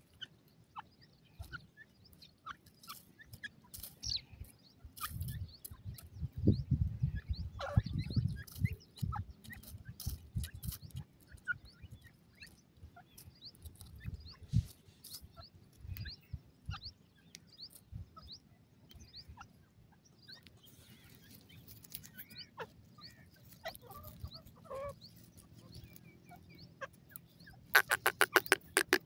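Grey francolins foraging, making soft clucks and many short chirps. Low thumps come about five to ten seconds in, and a quick rattling run of strokes comes near the end.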